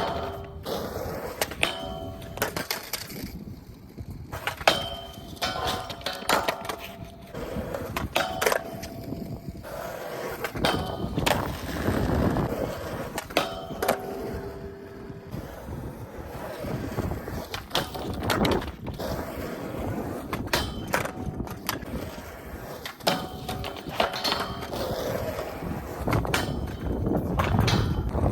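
Skateboard rolling on pavement with frequent sharp clacks of the board and trucks hitting the ground, several of them ringing briefly.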